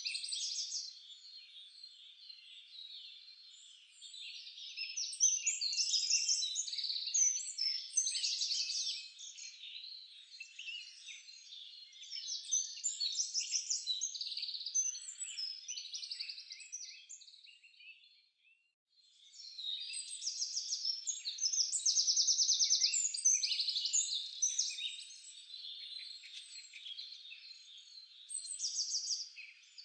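Many songbirds chirping and trilling together in a dense, high-pitched chorus, with a break of about a second a little past halfway.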